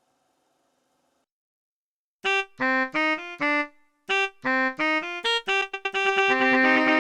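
About two seconds of near silence, then short, choppy electric-piano-style keyboard chords in a rhythm. About six seconds in they turn into a held, layered chord.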